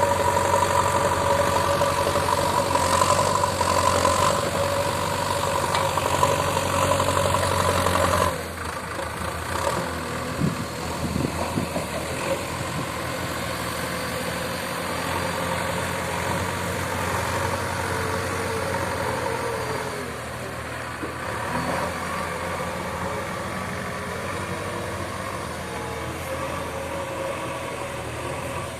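Diesel engine of a JCB earthmoving machine running steadily. About eight seconds in the sound drops abruptly to a quieter, less even engine sound that continues to the end.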